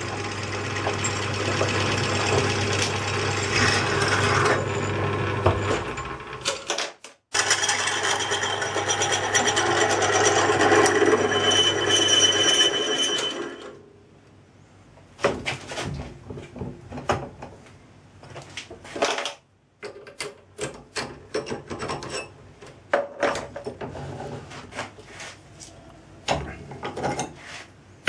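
A small metalworking lathe drilling into an aluminium casting clamped to its cross-slide: a steady motor hum under a harsh cutting noise, with a brief break about seven seconds in. About halfway through the lathe stops, and scattered metallic clanks and rattles follow as the clamp and the part are handled.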